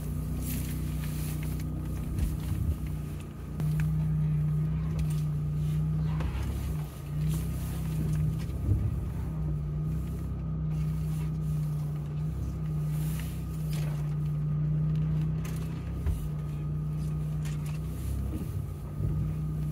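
Jeep Gladiator's engine crawling at low speed, heard from inside the cab: a steady low drone that swells and dips with the throttle, with scattered short knocks and rattles as the Jeep rolls over a rocky trail.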